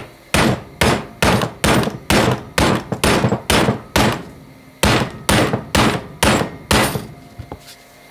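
A hammer tapping on a 30 mm socket held against a bearing's outer race, driving the bearing into its bore: a steady run of sharp strikes about two a second, with a short break about halfway and another near the end.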